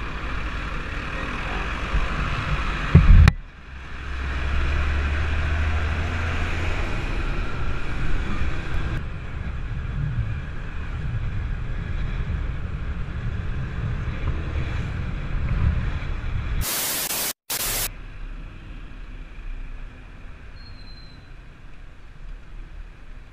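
Suzuki motor scooter being ridden in traffic: wind rushing over the microphone on top of the engine and passing vehicles. The sound changes abruptly about three seconds in and again near nine seconds, and a loud burst of hiss lasting about a second comes past the middle, after which it runs quieter.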